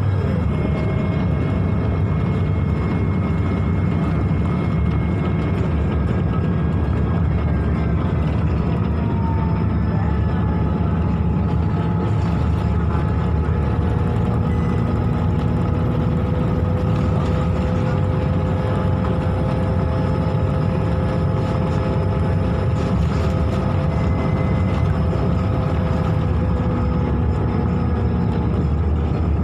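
Inside a Scania K280UB bus, its 9.3-litre five-cylinder diesel running with a steady drone overlaid by several steady whining tones; a faint high whine rises about halfway through, holds, and falls away near the end. The uploader takes the weird noise for the engine's cooling fan spinning extra fast because the engine is overheating.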